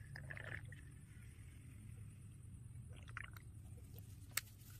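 Faint handling noises at a small metal camp stove: a short scrape as a tool is worked into its alcohol burner, a few light clicks about three seconds in, and one sharp click near the end, over a low steady hum.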